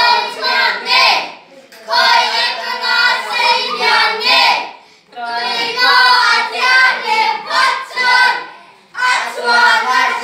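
A small group of children singing a song in Mizo together in unison, without accompaniment, in phrases of about three seconds with brief breaks between.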